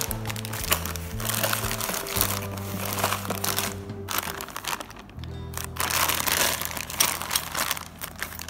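Clear polyethylene bag of furniture fittings (wooden dowels, metal brackets and screws) crinkling as it is handled, in two spells with a short pause about halfway. Background music plays throughout.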